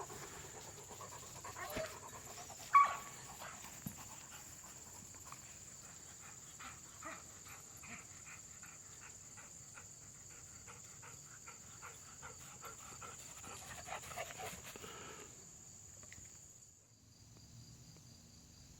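A dog panting close by in a quick even rhythm, fading out about three-quarters of the way through. A single short sharp sound, the loudest thing here, comes about three seconds in.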